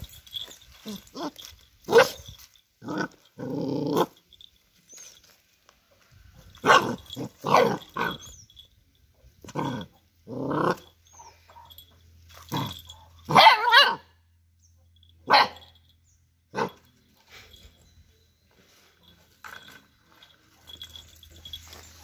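Black-and-tan puppy giving short playful barks and growls, a dozen or so separate yaps with gaps between them. The loudest is a quick double bark about halfway through, and the calls thin out and grow faint near the end.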